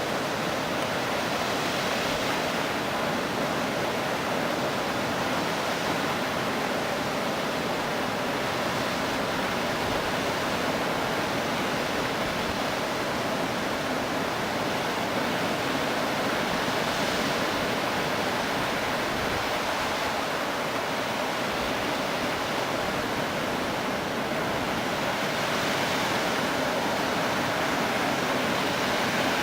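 Waterfall rushing: a steady, unbroken roar of falling water spread across high and low pitches alike.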